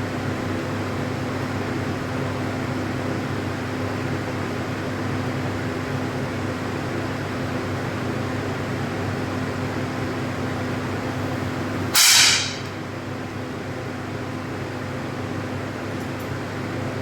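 A single 10 m air pistol shot, one sharp crack about three quarters of the way through, over a steady mechanical hum.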